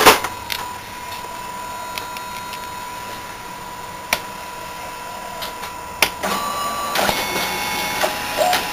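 Xerox A-Color 935 colour copier starting a copy cycle: a thump at the very start, then a steady high whine with a few sharp clicks. From about six seconds in, several steadier motor tones join in as the scanner carriage and lamp run under the glass.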